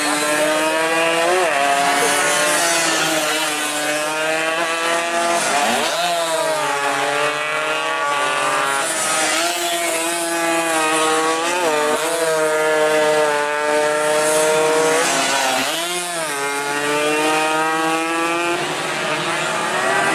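Two-stroke underbone racing motorcycles of 116–125 cc running hard at high revs. The engine pitch holds steady, dips sharply and climbs back several times, about four times in all, as the bikes shift gear and brake for corners.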